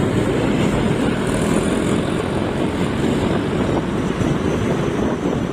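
Steady rushing noise of a moving vehicle on the road, with wind buffeting the microphone.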